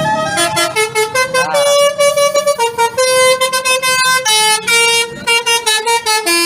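Indonesian 'telolet' bus horn, a multi-tone musical air horn, playing a melody of stepped notes that change several times a second, with one note warbling in pitch about a second and a half in.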